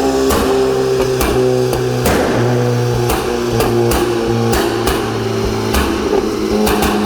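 VW Polo AW's 2.0 TSI turbocharged four-cylinder running at raised revs with small rises and dips, broken by about a dozen sharp, irregular exhaust pops and crackles, the pop-and-crackle effect of an aftermarket tune.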